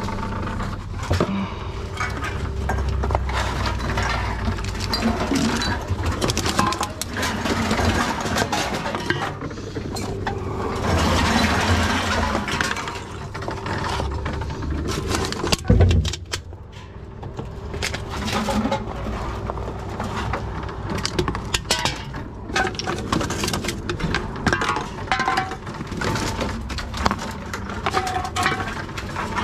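TOMRA reverse vending machine running with a steady hum as cans and plastic bottles are pushed into its intake, with repeated clicks and clatter of the containers going through, and one loud knock about sixteen seconds in.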